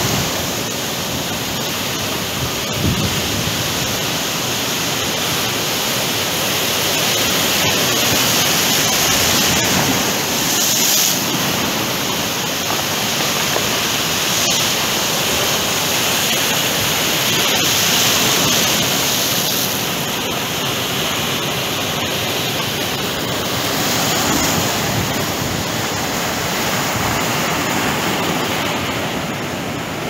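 Sea surf breaking and washing in foam over a rocky shore: a continuous loud rush of water that swells and eases every several seconds.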